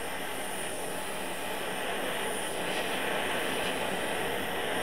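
Handheld butane torch burning with a steady rushing hiss as its blue flame heats copper and silver wire for sweat soldering.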